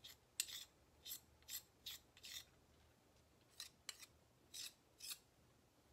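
A small metal spoon scraping against a glass bowl as it stirs and scoops melted chocolate: about ten short, faint scrapes, with a pause of about a second near the middle.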